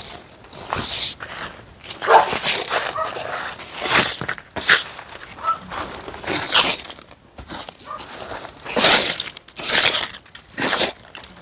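Broom sweeping dry fallen leaves, in irregular scratchy strokes about once a second.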